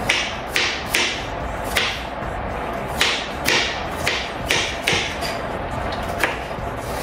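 Kitchen knife cutting through a bell pepper onto a wooden cutting board: about ten sharp chops at uneven spacing, over steady background music.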